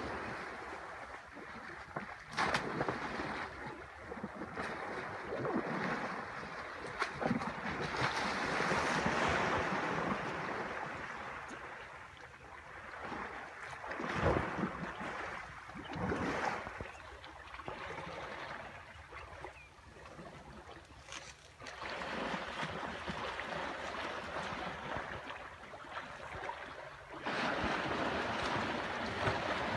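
Water splashing and sloshing as African elephants wade and swim through a river, mixed with wind and reeds rustling against the microphone, with a few sharp knocks. The rustle grows louder near the end.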